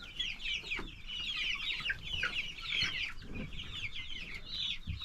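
A flock of young chickens peeping in a dense, continuous chorus of short, high chirps.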